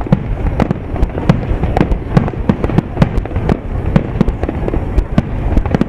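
Fireworks display: aerial shells launching and bursting in quick succession, a rapid, irregular series of sharp bangs, several a second, over a continuous low rumble.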